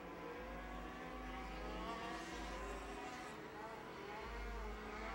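Several race truck engines running at once, heard faintly, their overlapping pitches rising and falling as they circle the track.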